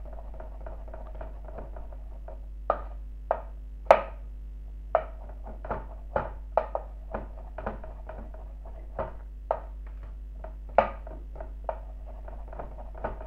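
Small kitchen knife slicing brown mushrooms on a wooden cutting board: irregular knocks of the blade on the board, one or two a second, a few of them louder, over a steady low hum.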